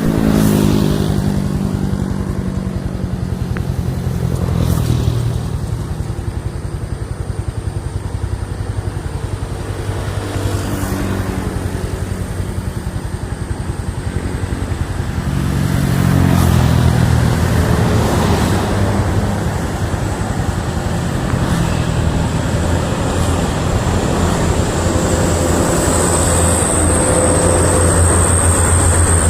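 A motor engine running steadily, its pitch shifting up and down at times, with a thin high whine that grows louder near the end.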